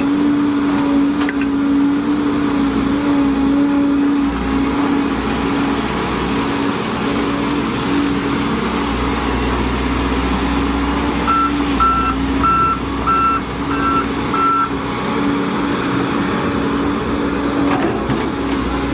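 Volvo EC210DL excavator running at work, a steady diesel and hydraulic drone with a constant hum. About halfway through, a backup alarm beeps six times in quick succession.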